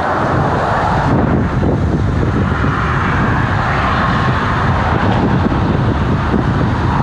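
Gasoline flowing from a fuel pump nozzle into a car's tank, a steady rush that does not let up.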